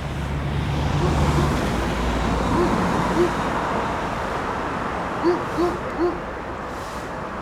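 Eurocopter EC135 twin-turbine helicopter running with a steady rushing noise, with a low rumble in the first second and a half. Over it a bird gives short calls, twice and then three in quick succession.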